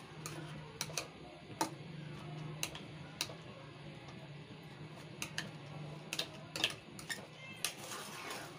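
Steel spoon clicking and scraping against a kadhai while mashing soft cooked apples, in irregular sharp taps, more of them in quick succession near the end, over a faint low hum.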